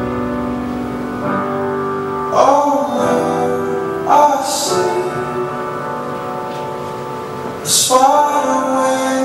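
Music for a couple's dance: a slow song, with a singer's phrases coming in about two, four and eight seconds in over held, sustained accompaniment.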